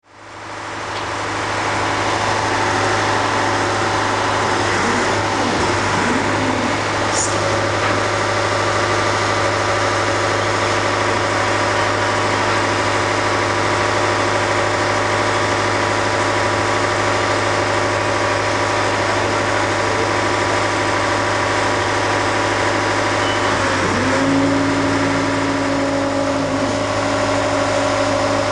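A large engine running steadily, with a brief high squeak about seven seconds in; about 24 seconds in its tone shifts and a new steady note joins.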